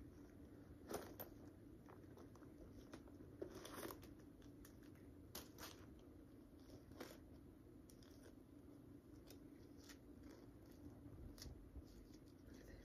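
Faint scattered clicks and rustles as a leather crossbody bag is handled and its white paper stuffing is pulled out.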